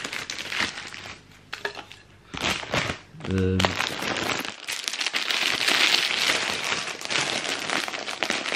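Plastic sweet wrappers and snack packaging crinkling and rustling as packets are opened and sweets are handled: short bursts at first, then continuous crinkling from about four seconds in.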